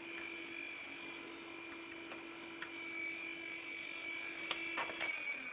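Steady electrical hum from running equipment, with a few sharp clicks about four and a half seconds in, just before the hum cuts off.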